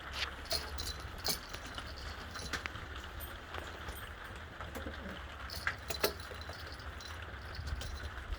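Birds giving short, scattered chirps and clicks over a low steady rumble.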